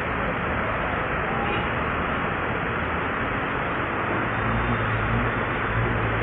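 Rain and wet-road traffic: a steady hiss of rain and tyres on wet tarmac, with a vehicle engine's low hum growing louder about four seconds in.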